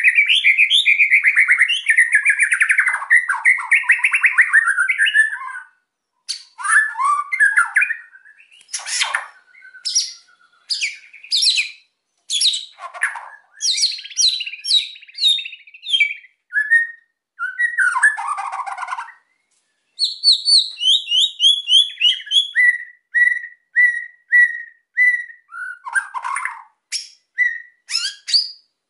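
White-rumped shama (murai batu) singing loudly in an excited, aggressive mood: it opens with a harsh rapid rattle lasting about five seconds, then breaks into a varied run of clear whistles, sharp sweeping notes and a string of short repeated notes near the end.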